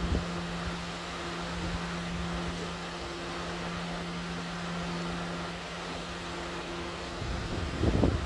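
Steady hum from a subway train standing at the platform, its air-conditioning and auxiliary equipment running, with wind buffeting the microphone at the start and again near the end.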